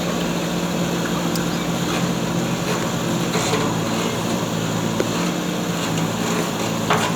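JCB backhoe loader's diesel engine running at a steady speed, with a couple of faint clicks near the end.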